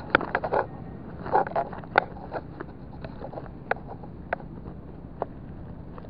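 Close handling noise: irregular sharp clicks and knocks, bunched in the first two seconds and then single ones about a second apart, over a steady low rumble.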